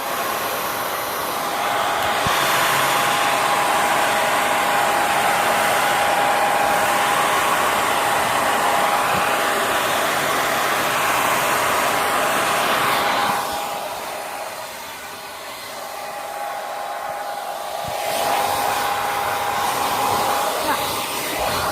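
Hair dryer running: a steady rush of air with a steady whine through it. It drops quieter for a few seconds past the middle, then comes back up to full.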